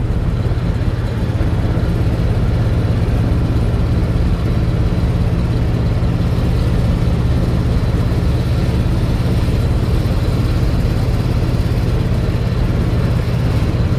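Steady engine hum and road noise heard from inside the cabin of a moving vehicle.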